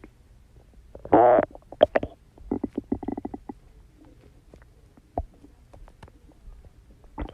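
A person's stomach growling: irregular gurgles and pops, with a loud short squealing growl about a second in and a bubbling run of gurgles around three seconds in.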